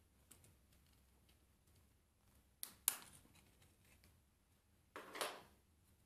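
Small 3D-printed plastic parts being handled: mostly near silence, with a few faint clicks, one sharper click about three seconds in, and a brief rustle near the end.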